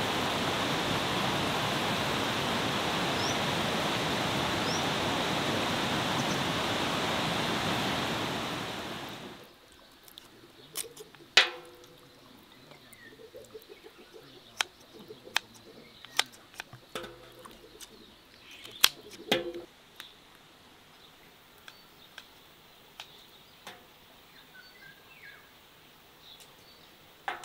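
Rushing water from a waterfall and stream, steady, fading out about nine seconds in. Then sharp, irregular snips and clicks of kitchen scissors cutting through raw quail, with a few faint bird chirps.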